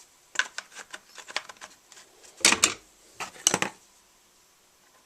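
Hand tools and chainsaw parts being handled during reassembly: a quick run of small clicks, then two louder clattering knocks of plastic and metal a second apart, then it goes quiet.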